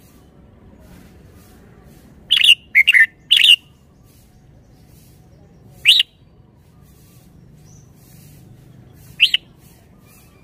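Red-whiskered bulbul singing: a quick phrase of about four loud, short notes, then two single notes a few seconds apart.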